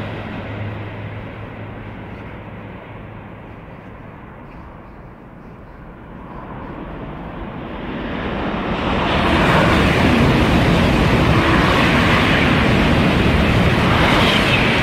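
Rushing noise of a passing train fading away, then the roar of a KTX-Sancheon high-speed train building up from about six seconds in and staying loud as it runs through.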